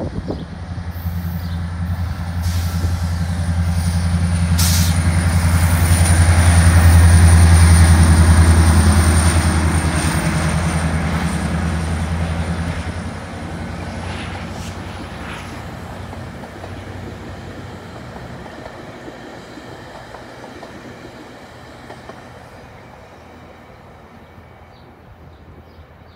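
GO Transit commuter train passing: the diesel locomotive's steady low drone swells to its loudest about seven seconds in, with a thin high whine and a few sharp clacks from the wheels. The sound then fades steadily as the bilevel coaches go by and the train draws away.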